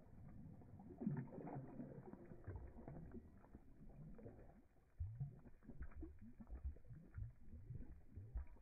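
A dog, an Australian shepherd, blowing bubbles into shallow water with its nose, slowed down: faint, low, irregular burbling and gurgling, with louder bursts about a second in and about five seconds in.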